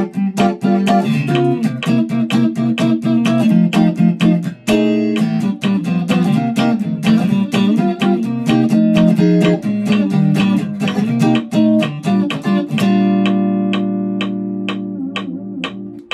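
Electric guitar through a 1964 Fender Vibro Champ amp, strummed with a pick in short, crisp strokes: very fast shuffle chord comping on rhythm changes, with a walking bass line moving through the chords. About three-quarters of the way through, one chord is left ringing and slowly fading.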